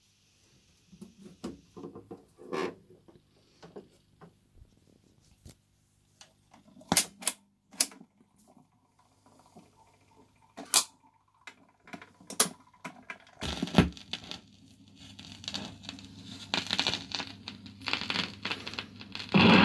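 BSR record changer cycling: a string of light mechanical clicks and knocks from the changer mechanism, then a heavier knock about two-thirds of the way through as the stylus comes down. Surface crackle from the lead-in groove follows through the music centre's speakers, growing louder toward the end, over a faint amplifier hum.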